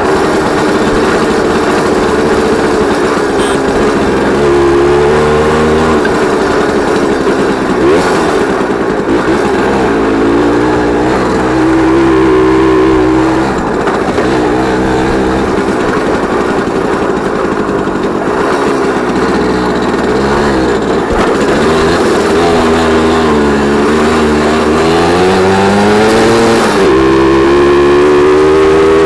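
Jawa 50 type 21 Pionýr moped's 50 cc single-cylinder two-stroke engine running under way, geared with a 14-tooth sprocket. Its pitch climbs and drops again and again as the throttle is opened and eased and gears change, rising most strongly near the end.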